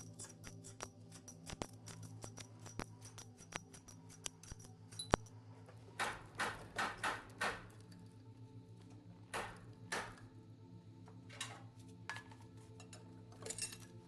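Metal clinks, quick clicks and short rattling scrapes of hand tools on diesel engine parts during disassembly, over a steady low droning music bed. A run of sharp ticks fills the first five seconds, then louder scattered rattles and scrapes follow.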